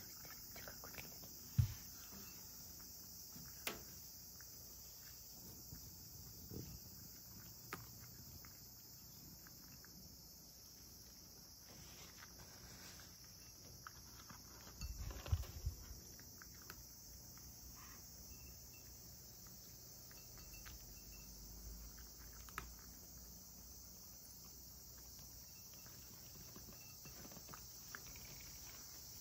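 A cat eating dry kibble from a ceramic bowl: faint crunching and small clicks of kibble and bowl, with a sharp low knock about a second and a half in and a cluster of louder knocks around the middle. A steady high-pitched hiss runs underneath.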